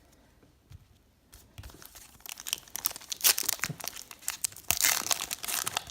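Foil trading card pack wrapper crinkling and tearing as it is handled and ripped open, starting about a second and a half in and growing denser and louder toward the end.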